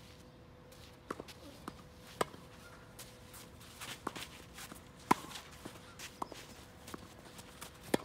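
Tennis balls struck by rackets and bouncing on the court during a rally: a series of sharp pops a second or so apart, the loudest about five seconds in and just before the end, with lighter footstep scuffs between.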